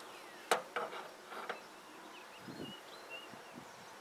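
A few light clicks and taps of a wrench handled at the outdoor unit's brass service valves, the loudest about half a second in. Faint short high chirps sound in the background through the second half.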